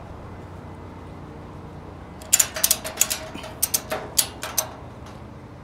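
Ratchet strap being cranked tight: a quick run of sharp ratcheting clicks starts about two seconds in and lasts about two seconds. It is the wheel tie-down being tensioned to secure a vehicle on a car-hauler trailer.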